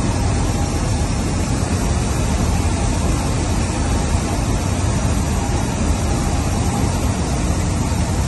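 Cessna 152's four-cylinder Lycoming engine and propeller running steadily, heard from inside the cabin as a constant low hum under a broad rush.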